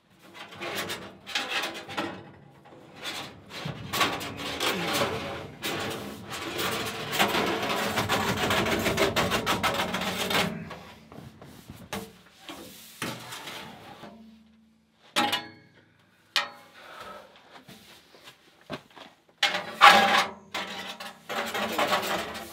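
Rigid sheet-metal dryer duct being handled and fitted: metal scraping and rubbing with clanks, a long stretch of scraping over the first ten seconds, then scattered knocks and clatters.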